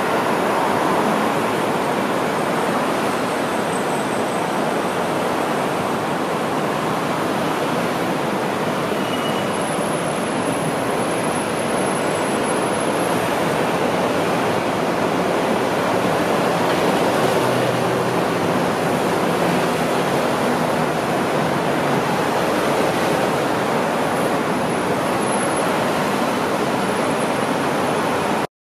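Steady, even rushing wash of city road traffic, blurred into a continuous noise like a waterfall with no single vehicle standing out.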